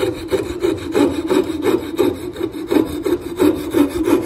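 Coping saw cutting a curve through a wooden board, in quick back-and-forth strokes of about three a second, the blade being turned along the cut.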